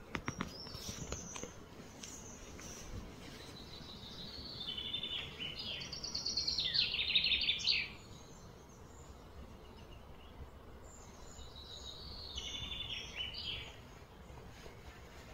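Outdoor ambience with a bird singing: a run of rapid, high chattering notes builds about a third of the way in and cuts off suddenly, then a shorter, quieter run follows a few seconds later. A few light ticks near the start.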